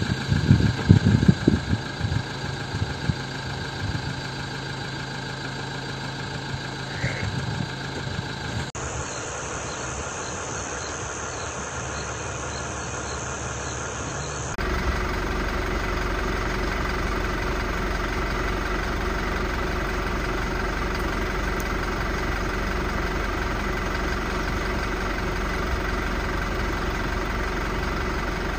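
A vehicle engine idling steadily, with a few loud low thumps in the first two seconds. The background changes abruptly about nine and fifteen seconds in, and from then on it is louder and steady, with a strong low rumble.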